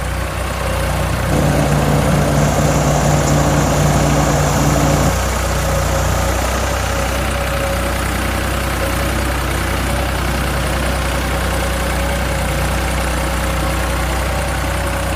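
Heavy machine engine idling with a steady low hum. A second, louder engine note joins from about a second in until about five seconds in.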